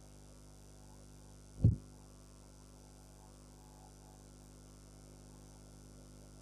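Faint steady electrical mains hum from the recording setup, with a single short low thump about a second and a half in.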